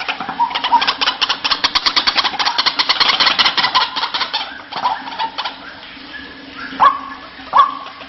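White-breasted waterhen calls: a fast rattling chatter of many harsh notes a second, which thins out around five seconds in. Near the end, separate loud calls follow, each with a quick drop in pitch, about one every half second or so.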